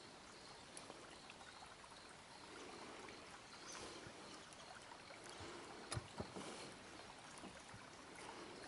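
Very faint water lapping, with two soft knocks close together about six seconds in.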